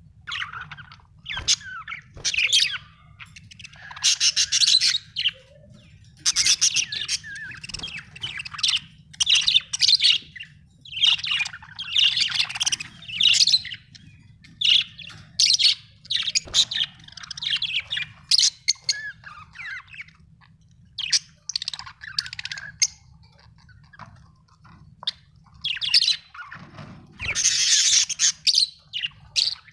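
Budgerigars chirping in quick phrases of high chirps, with short pauses between, over a low steady hum.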